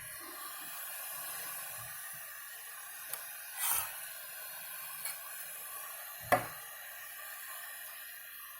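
Anycubic i3 Mega 3D printer's cooling fans running with a steady hiss while it prints. A short burst of noise comes a little under four seconds in, and a sharp click comes about six seconds in.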